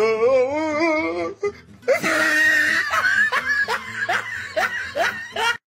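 A person laughing hard: first one long wavering laugh, then a run of quick, higher-pitched bursts of laughter, cut off abruptly near the end.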